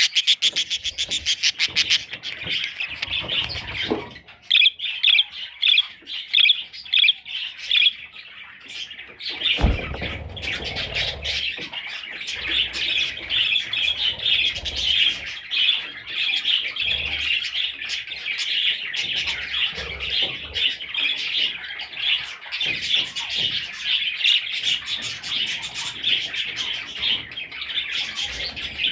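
Budgerigar chicks chirping and cheeping continuously, starting with a fast run of repeated chirps and growing louder for a few seconds about four seconds in. A single low thump comes about ten seconds in.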